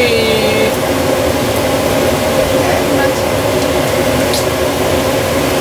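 Onions frying in oil in a frying pan: a steady sizzling hiss over a constant hum. A short steady tone fades out within the first second, and there are a few faint light clicks later on.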